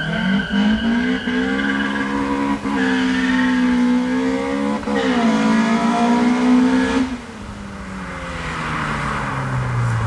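Nissan Champ bakkie's swapped Toyota dual BEAMS engine on individual throttle bodies, revving hard at high rpm with two brief dips in pitch. About seven seconds in it comes off the throttle, and the engine note falls steadily as it slows.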